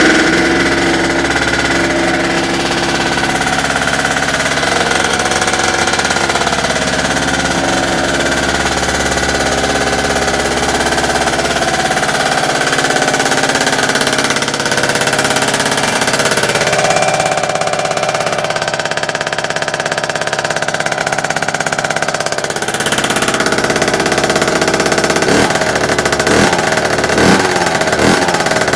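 Tuned two-stroke scooter engine with a Malossi MHR Team cylinder kit, Top Performances TPR expansion exhaust and 21 mm Dell'Orto carburettor, running steadily. Near the end it is blipped several times, with quick rises in revs.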